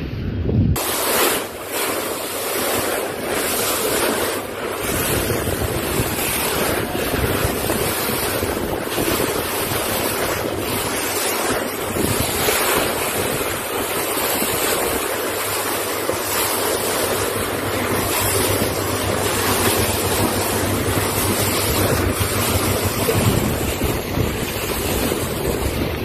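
Wind buffeting the phone's microphone over the sea from a boat under way, a steady loud rushing that starts suddenly just under a second in, with a faint low hum underneath in the second half.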